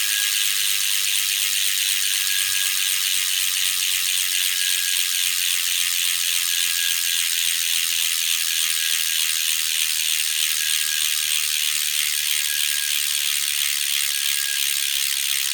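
Imezi 167 carbon road wheel's rear hub ratchet buzzing steadily as the wheel freewheels at speed, with a faint high-pitched tone coming and going over it. The owner suspects this abnormal high tone comes from a weak press-fit around the hub bolts.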